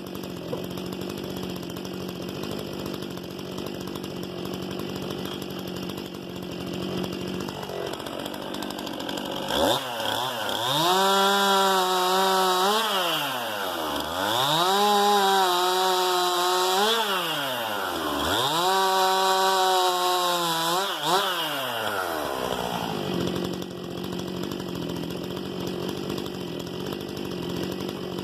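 STIHL MS 261 C-M two-stroke chainsaw idling, then opened up to high revs three times in a row, the engine note dropping away between each run. It settles back to idle near the end.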